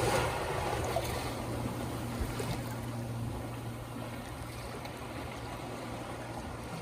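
Waves washing on a beach as a steady rush, with a low steady hum under it, slowly fading.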